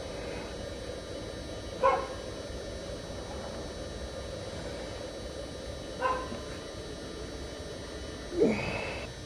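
A dog barking three times, two short barks and then a longer yelp that rises in pitch near the end, over a steady background hum.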